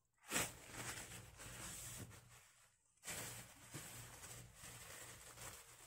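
A plastic bag being handled, rustling faintly in two stretches with a short pause about two and a half seconds in.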